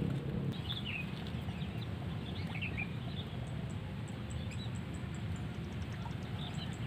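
Small birds chirping in short bursts of quick, twittering calls, several times over a few seconds, above a steady low background rumble.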